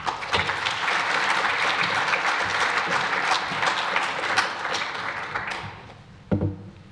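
Audience applauding, dying away about five and a half seconds in.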